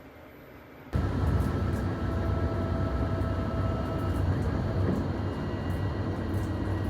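Loud steady rumble of a running vehicle, starting suddenly about a second in, with a deep low hum and a few faint steady tones above it.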